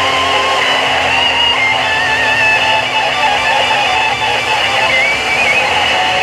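Electric-guitar-led music played over an airshow public address system.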